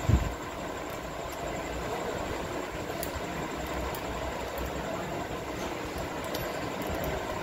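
Steady hum and hiss, with a few faint clicks as a hand spline roller presses the rubber spline into the groove of a mosquito-net frame.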